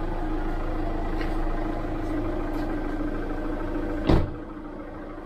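Steady mechanical hum with a strong low tone. About four seconds in there is a single loud knock, and after it the hum is noticeably quieter.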